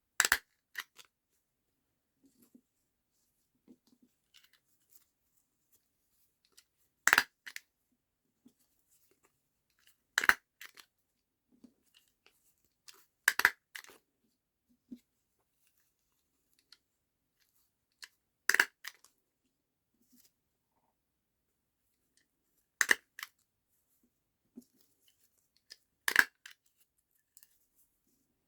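A hand stapler clacking shut through layered paper scraps and fruit netting, seven sharp strikes a few seconds apart, each with a smaller click just after, with faint paper handling in between.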